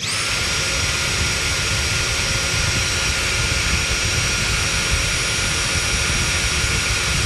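Dyson V7 Motorhead cordless stick vacuum switched on. Its motor spins up within a fraction of a second to a steady high whine over a loud rush of air, with the motorized brush roll spinning.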